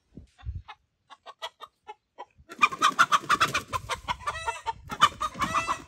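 Chickens clucking, starting about two and a half seconds in after a few faint clicks.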